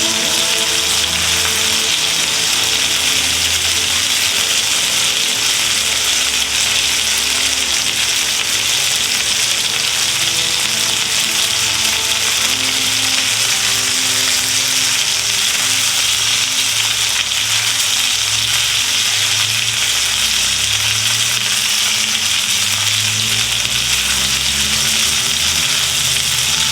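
Food sizzling steadily in a frying pan, with background music playing.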